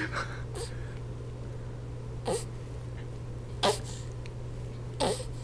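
A young baby's short, breathy effort grunts, three of them about a second and a half apart, each with a quick falling pitch, as she strains to roll over. A steady low hum runs underneath.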